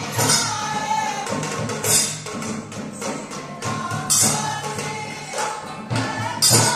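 Live music accompanying a stage dance: a singing voice carrying a melody over drums, with bright jingling crashes about every two seconds.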